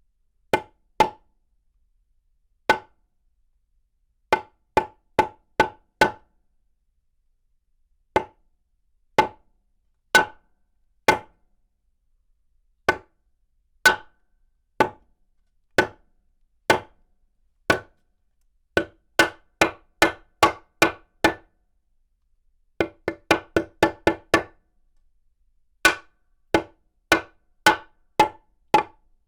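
Hammer striking wood again and again, each blow a sharp knock with a short ring. Most blows fall about a second apart, with a few quick runs of four to six. Heard from medium distance.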